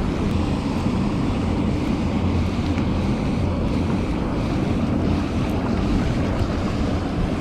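Loud, steady rush of fast-flowing stream water.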